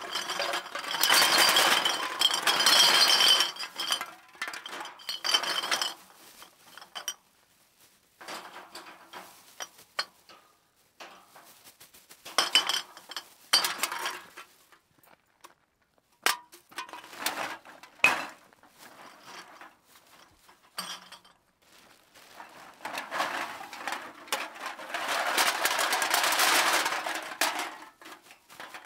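Glass bottles clinking and clattering against each other in several bursts, with single sharp clinks between them. The longest bursts come at the start and near the end.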